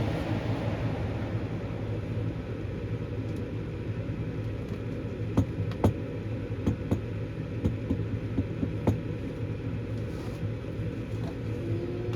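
Gas furnace running its start-up sequence: the draft inducer motor hums steadily. A rushing noise fades over the first couple of seconds, and scattered sharp clicks and ticks come from about five seconds in.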